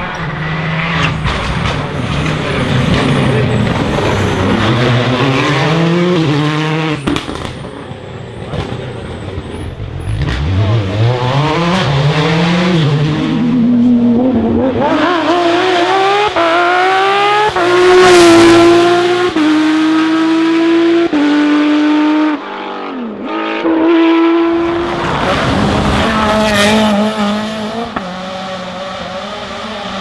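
Rally cars passing one after another at full speed, engines revving hard with quick gear changes and lifts off the throttle. In the middle a Porsche 911's flat-six climbs through several gears, loudest about eighteen seconds in.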